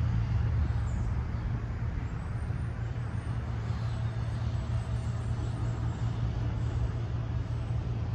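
Steady road-traffic noise: a constant low rumble under a broad hiss, with no single passing vehicle standing out.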